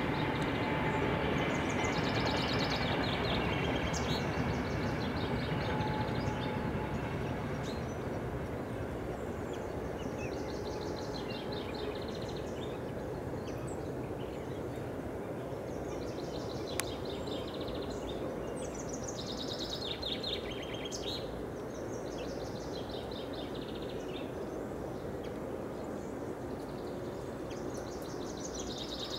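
Steady low rumble, loudest for the first several seconds and then easing off, under small songbirds singing short high phrases again and again.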